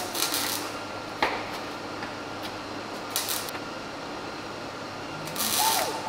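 Scotch-Brite pad on a grinder scrubbing a door-panel piece to smooth it: a low steady hum with several short scratchy hisses as the pad is worked over the surface.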